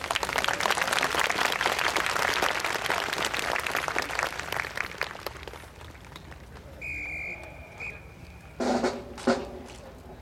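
Audience applause for about five seconds, then a whistle blast, one long and one short, followed by a few snare and bass drum strokes from the honor guard's drum section near the end.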